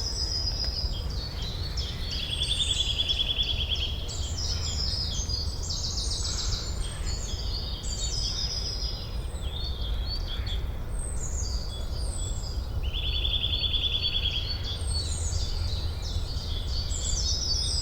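Forest ambience with several songbirds singing and chirping, including two fast trills of rapidly repeated notes, over a steady low rumble.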